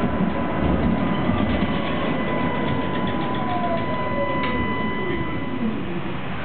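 City tram running on street rails, heard from inside the car: a steady rumble of wheels and body with a held high electrical tone, and a motor whine that falls steadily in pitch over about five seconds as the tram slows. A single click about four and a half seconds in.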